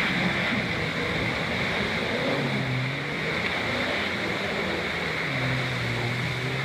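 Jeep Cherokee XJ's engine revving under load as its spinning rear tyre churns through deep muddy water, with a steady rush of spray and splashing throughout.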